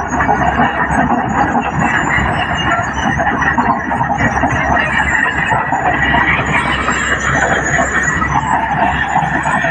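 Tracked excavator running at work, a loud, steady mechanical noise of engine and hydraulics.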